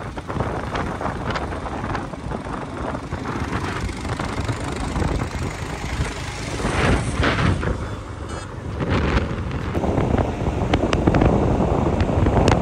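Motorcycle riding along a road: engine and road noise mixed with wind buffeting the microphone, getting louder about ten seconds in.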